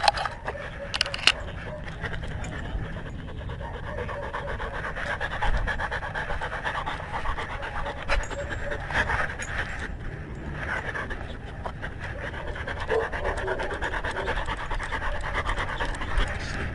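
A dog panting steadily right at a collar-mounted camera, with a low rumble of the camera moving on the collar and a couple of sharp clicks about a second in.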